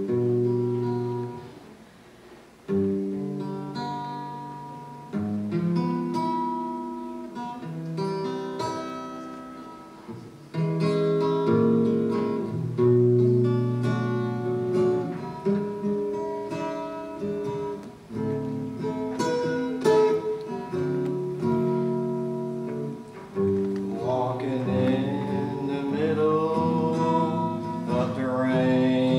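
Acoustic guitar strumming the song's intro: one chord about every two and a half seconds, each left to ring and fade before the next. A man's singing voice comes in near the end over the guitar.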